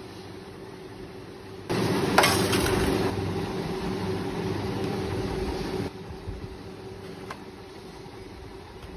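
Steady mechanical hum, with a louder rushing noise for about four seconds starting near two seconds in, and a light clink about two seconds in.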